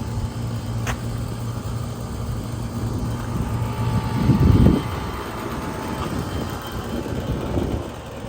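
Vehicle noise: a steady low hum and rumble, swelling louder briefly about four seconds in.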